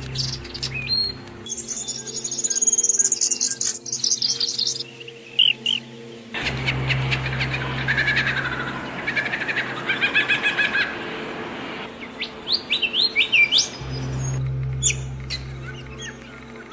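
Several songbirds chirping and singing: quick trills, rapid repeated chirps and short rising whistles, over a steady low hum that drops out and returns abruptly.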